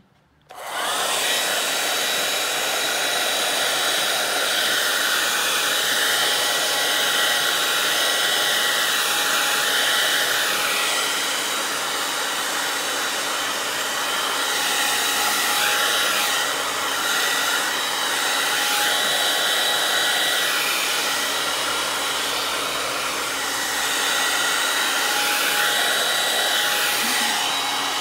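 Remington hand-held hair dryer switched on about half a second in and running steadily on high: a rushing hiss with a faint steady whine, rising and falling slightly as it is swept about.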